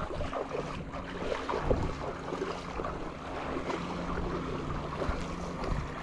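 Ocean surf washing ashore with wind buffeting the microphone, over a faint low steady hum.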